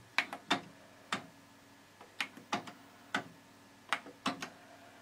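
Front-panel buttons and tape transport of an Aiwa AD-F910 cassette deck clicking as they are pressed over and over: about a dozen sharp clicks at uneven intervals, several in quick pairs. The deck is malfunctioning with the tape stuck inside.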